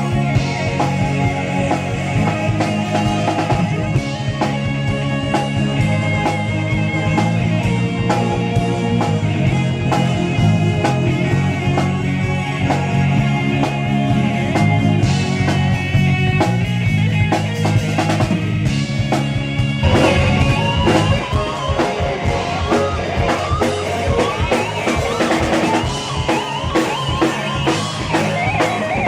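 Live rock band playing instrumentally: a drum kit keeps a steady beat under bass and guitar. About twenty seconds in the low bass notes drop away and a guitar plays sliding, bending notes over the drums.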